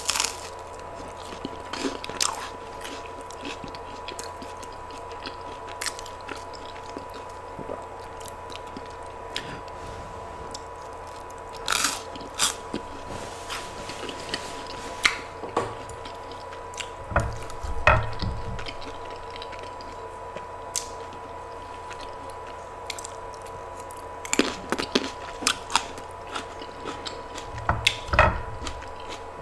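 Close-miked eating sounds: a person biting and chewing food, with scattered crisp crunches and a few soft low thuds, over a faint steady hum.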